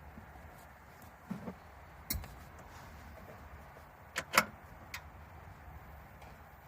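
A few short clicks and knocks from the camping-stove hob holder being handled and repositioned, with the loudest pair about four seconds in.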